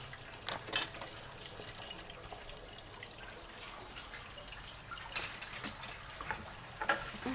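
Water running and splashing at a kitchen sink as something is rinsed, with a short knock under a second in and a cluster of clatters about five to seven seconds in.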